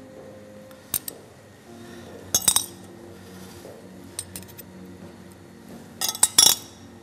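A metal spoon clinking and tapping against serving bowls and dishes in short clusters: a pair of taps about a second in, a louder cluster halfway through the first three seconds, a few light taps around four seconds, and another loud cluster near the end, as stuffing is scooped and spooned into hollowed courgettes.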